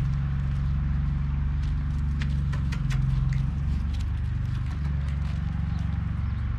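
A steady low machine hum with a constant pitch, overlaid by scattered light clicks and steps on the ground, most of them a couple of seconds in.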